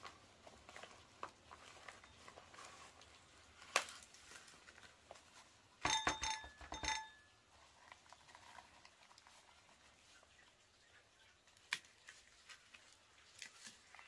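Faint handling noises: scattered small clicks and rustles, with a short run of metal kitchenware clinks about six seconds in that ring at a steady pitch.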